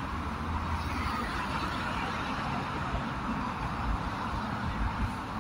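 Street traffic noise. A car passes close by as the sound begins, with its low rumble easing after about a second, and a steady hum of passing vehicles follows.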